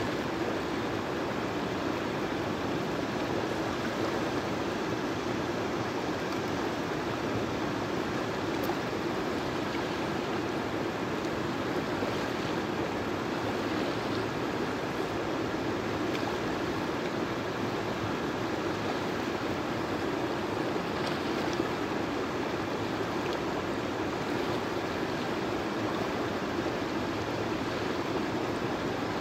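Potomac River water rushing over and around boulders in shallow rapids: a steady wash of running water.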